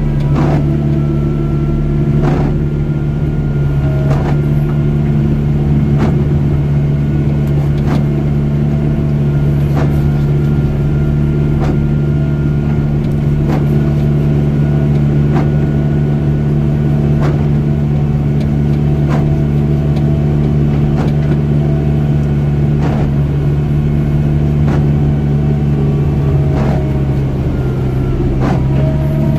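John Deere 244K compact wheel loader's diesel engine running steadily under load while pushing snow with its plow, heard from inside the cab; its pitch drops slightly near the end. A faint click repeats about every two seconds.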